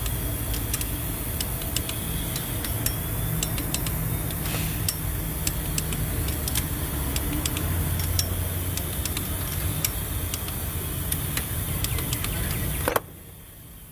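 Scattered sharp clicks from a hand wrench as the camshaft-cap bolts on a cylinder head are rechecked for torque, over a steady low hum of a running vehicle engine. The sound cuts off abruptly about a second before the end.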